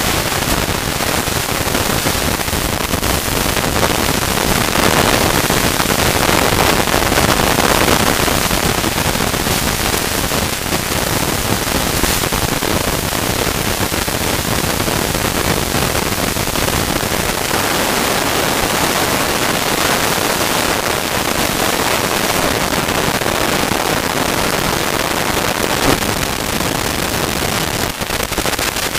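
Steady wind rush on the microphone, mixed with continual crackling and rattling from a mountain bike rolling fast over a rough dirt trail.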